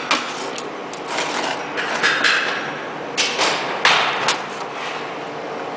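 Sharp metallic knocks of a brass drift striking a large spherical roller bearing, about half a dozen irregular blows roughly a second apart, each with a short ring, stopping near the end.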